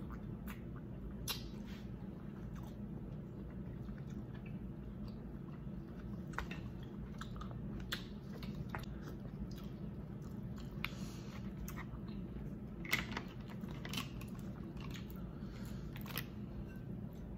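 Close-up mouth sounds of a person eating seafood boil with their hands: chewing, with scattered wet clicks and crunches, the sharpest about 13 seconds in.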